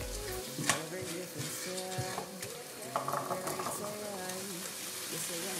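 Onions and ground spices sizzling in a nonstick frying pan while a spatula stirs and scrapes, with a sharp tap of the spatula on the pan about a second in. Drained chickpeas are tipped into the pan in the second half.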